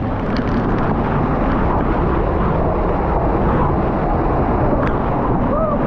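A small waterfall on a creek: falling water making a loud, steady noise with no break.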